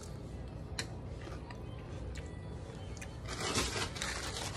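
Close-up chewing of a forkful of tuna and salad, with a few small clicks early on and a louder stretch of crunching about three seconds in.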